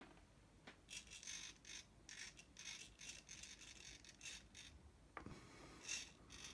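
Small hobby servo motors of a 3D-printed robot arm whirring faintly in short, irregular bursts as the arm moves. The accelerometer-controlled servo makes small corrections to keep the end bracket level. A light knock comes about five seconds in.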